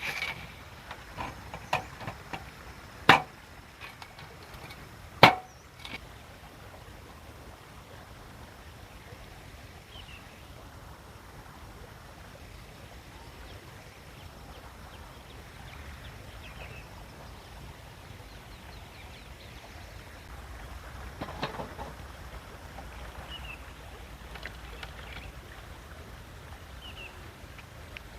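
A run of sharp knocks in the first few seconds, the two loudest about two seconds apart, then a quiet forest background with short high bird chirps every few seconds.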